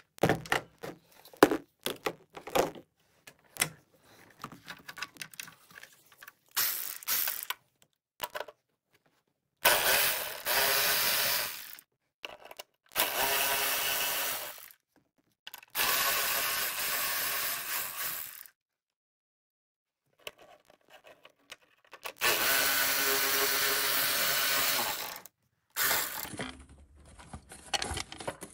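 A cordless electric ratchet runs in four bursts of two to three seconds each, working bolts under the wheel arch. Before the bursts come scattered sharp clicks and clatter of hand tools on metal, and there are a few more clicks near the end.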